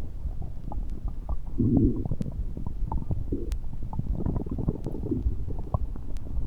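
Stomach rumbling and gurgling: a steady low rumble with several gurgling swells and many small pops and squelches.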